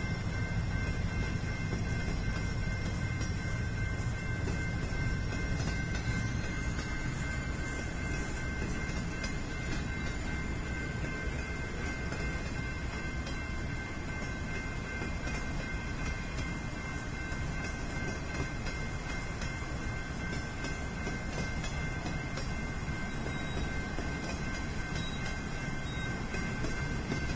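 A long freight train of empty intermodal well cars rolls steadily past on the tracks, with a continuous noise of wheels on rail. The diesel locomotives' engine drone is heard at the start and fades away within the first few seconds as they move off.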